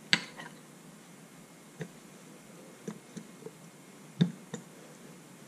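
Sharp clicks and knocks of a brake piston being worked by hand into a 1983 Honda Shadow VT750C front brake caliper, the piston sticking and not going in easily. The two loudest knocks come just after the start and about four seconds in, with a few lighter clicks between.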